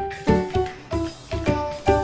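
Background music: a tune of short pitched notes with sharp starts that quickly die away, in a steady beat of about three notes a second.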